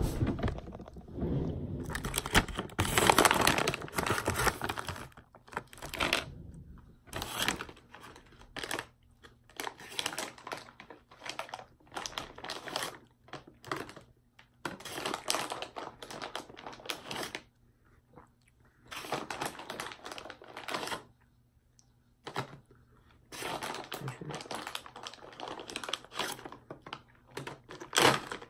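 Plastic Starburst Minis candy bag crinkling as it is handled and opened, in repeated bursts a second or two long with short pauses between.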